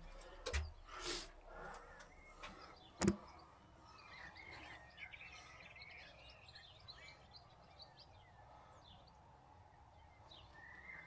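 Small birds chirping and singing faintly, with a few sharp knocks in the first three seconds, the loudest about three seconds in.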